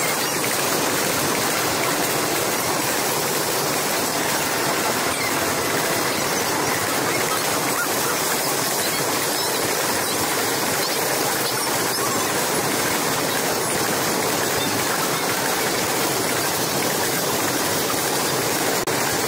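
Container freight train rolling past close by: a steady, unbroken noise of its wagons' wheels running on the rails.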